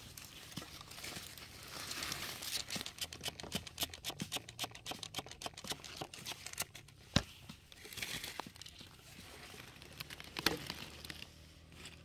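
Dry leaves, grass and loose gravel rustling and crackling as they are disturbed. There is a loud sharp click of stone on stone about seven seconds in and another near ten seconds in.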